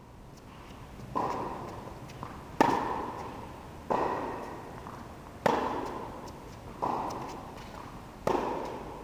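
Tennis ball struck back and forth by rackets in a baseline rally: six sharp hits, roughly one every second and a half, every other one louder. Each hit rings on in the echoing indoor tennis hall.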